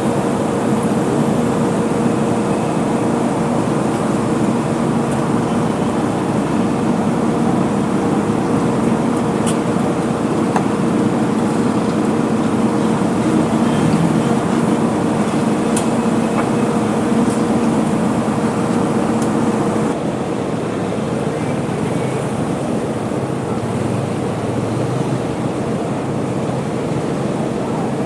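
Steady city road traffic with a droning engine hum that cuts out about twenty seconds in.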